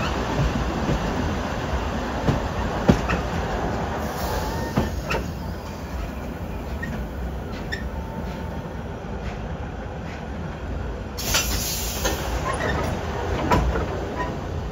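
Selfkant heritage steam train running on the track: a steady rumble with scattered clicks and knocks, and a brief burst of hiss about eleven seconds in.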